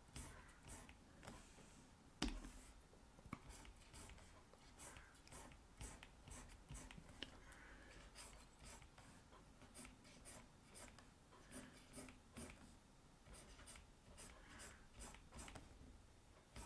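Faint scratching of a stylus pen drawing short strokes on a graphics tablet, with one soft knock about two seconds in.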